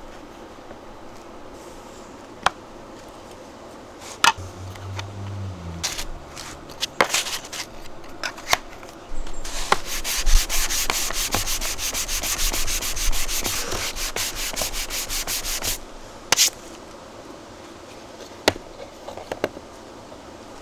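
Sandpaper on a 3D-printed sanding block rubbed rapidly back and forth over a surface for several seconds in the middle, with scattered clicks and knocks before and after.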